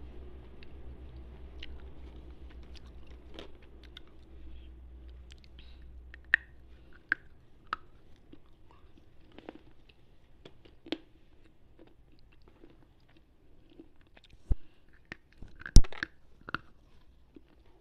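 Lal Qila slate pencils bitten and chewed close to a wired earphone microphone: a run of sharp, brittle crunches and clicks, sparse at first and loudest near the end. A low hum underneath stops about halfway through.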